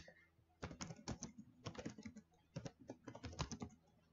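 Typing on a computer keyboard: faint, quick runs of keystrokes as a new folder's name is entered.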